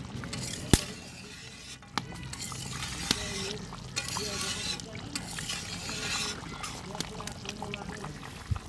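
Thin fish-and-potato curry bubbling at a rolling boil in a metal wok, with a few sharp knocks of a metal spatula against the pan, the loudest just under a second in. Faint voices in the background.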